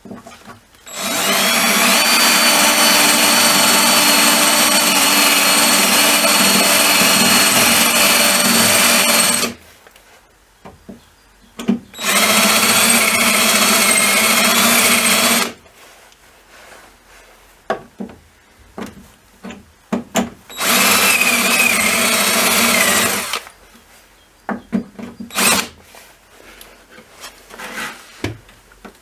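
Electric drill running in three bursts of several seconds each, a steady motor whine with a grinding edge, as when drilling out spot welds with a homemade spot weld cutter bit. Between the bursts come short clicks and knocks.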